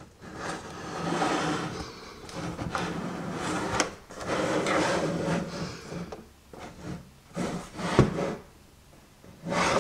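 Rubbing and scraping handling noise in uneven stretches, as of a plastic alarm clock being turned over in the hands, with one sharp click about eight seconds in.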